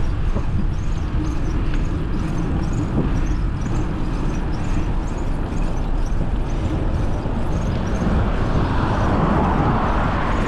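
Wind buffeting the microphone of a moving bicycle, a steady low rumble with road noise, and faint high chirps repeating through it.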